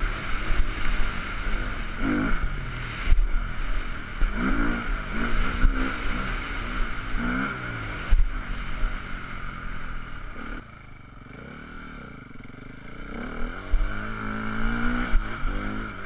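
Enduro motorcycle engine heard from an onboard camera as the bike is ridden hard off-road, revs rising and falling repeatedly with throttle and gear changes. About two thirds of the way through, the revs drop right down, then climb again. Short knocks from the rough ground are heard throughout.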